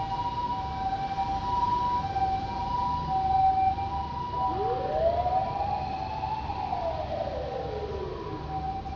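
A Japanese ambulance's two-tone hi-lo siren switching back and forth between a higher and a lower note. About halfway through, a second emergency vehicle's siren gives one slow wail that rises to a peak and falls away. A low traffic rumble runs underneath.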